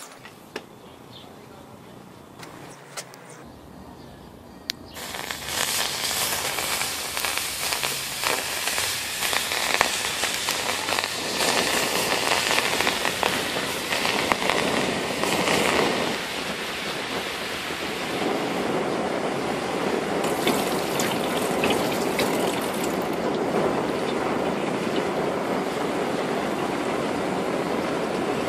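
Gummy bears sizzling and crackling loudly under freshly poured molten copper as they melt, smoke and burn; the sizzle starts suddenly about five seconds in, after a few quiet seconds with faint clicks.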